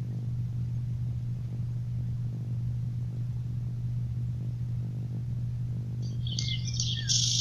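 A steady low hum, with faint higher sounds coming in near the end.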